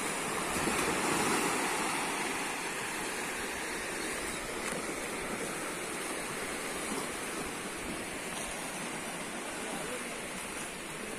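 Sea surf washing in over and around shore rocks: a steady rush of breaking water, loudest about a second in.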